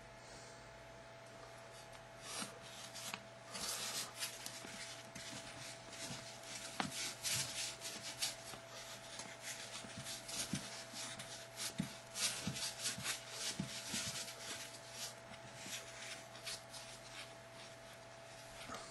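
Hand work scratching and rubbing on the blue foam mold in many short, irregular strokes, starting about two seconds in, over a faint steady hum.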